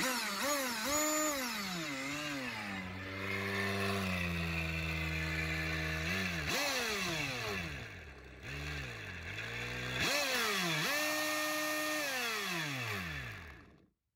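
Milwaukee M18 chainsaw motor spinning the impeller of a 3D-printed jet drive, throttled up and down in repeated surges of a rising and falling whine. It holds steady revs twice, then winds down and stops just before the end.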